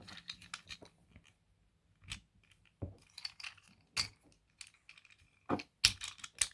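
Plastic Transformers Cyberworld Optimus Prime toy being handled: scattered small clicks and taps of its plastic parts, with a few louder knocks near the end.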